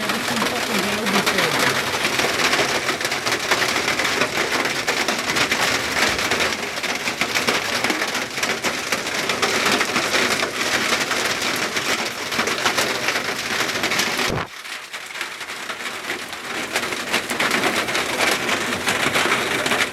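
Heavy rain pelting down in a dense, loud patter. About fourteen seconds in it suddenly drops quieter, then builds back up.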